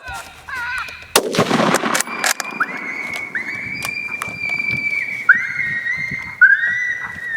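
A loud noisy burst about a second in, then a string of long, high coyote howls, each rising quickly and then held, overlapping one another.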